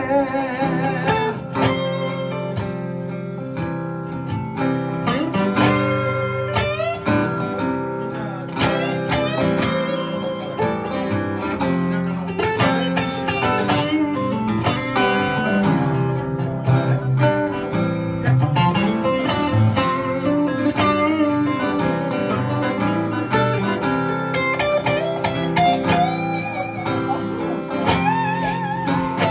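Acoustic guitar and electric guitar playing together live in an instrumental passage with no singing, the notes often bending up and down in pitch.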